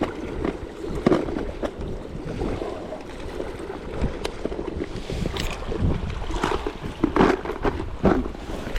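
Water sloshing and splashing in irregular surges over a steady wash, with wind rumbling on the microphone.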